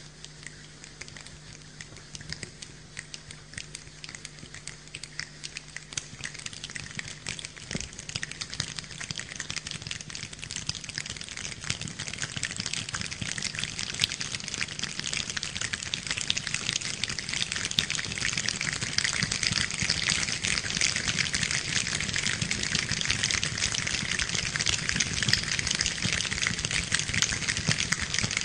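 Rain falling, with countless drops ticking, building steadily from a light patter to a heavy downpour.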